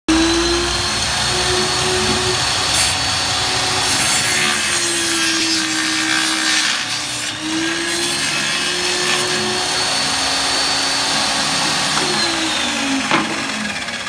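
Electric circular saw mounted under a homemade plywood table, used as a table saw, running and cutting through wooden boards. Its steady whine dips in pitch each time the blade takes the load of the cut, and sags lower near the end.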